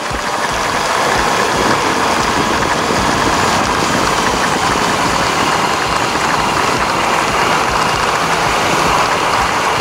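Honda CB400 Super Four's inline-four engine running while riding, under a steady rush of wind and road noise on the action camera's microphone; it grows louder over the first second.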